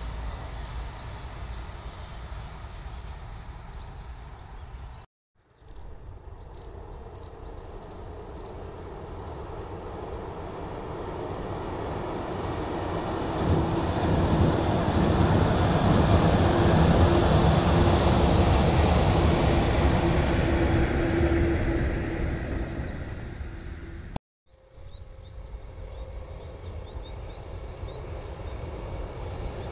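A yellow electric train crossing a steel truss railway bridge: the rumble of wheels on the rails and girders builds to a loud peak with a steady hum in the middle, then fades away. The sound cuts out briefly twice, and another train starts to approach near the end.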